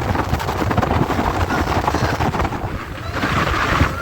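Wind buffeting the microphone aboard a moving motorboat, a steady low rumble with water rushing past. The rush grows louder for a moment near the end.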